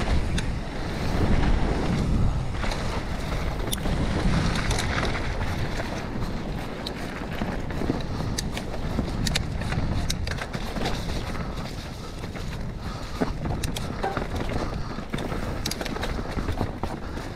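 Mountain bike descending a dirt and rock-slab trail: wind buffets the bike-mounted camera's microphone and the tyres roll over dirt and rock. Heavy wind rumble in the first few seconds gives way to many sharp clicks and rattles from the bike over the rough ground.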